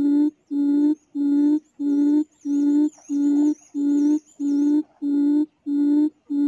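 Recorded quail call played through a speaker as a trap lure: a low hooting note, steady in pitch, repeated about every 0.6 seconds, some eleven hoots in all. A faint high warbling whistle runs through the middle.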